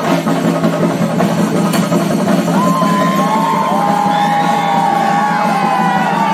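Loud music with dense drumming. From about halfway a crowd cheers over it, with long whoops that glide up and down.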